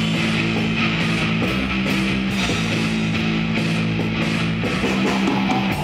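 A live band playing loud, distorted punk rock: an electric guitar holds low chords that change every second or so, with a drum kit's cymbals going over it.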